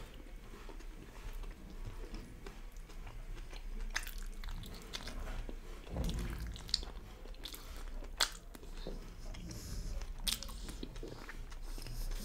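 Chewing and biting of chicken devil momos in their red semi-gravy: soft mouth sounds with a few sharp clicks and smacks scattered through.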